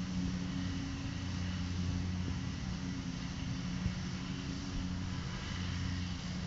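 A steady low engine drone made of several even humming tones, over a hiss of outdoor background noise.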